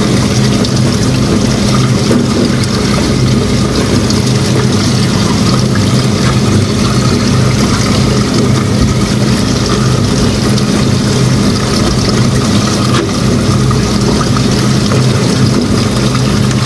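A loud, steady mechanical drone from a running motor or engine, holding one low hum pitch without change.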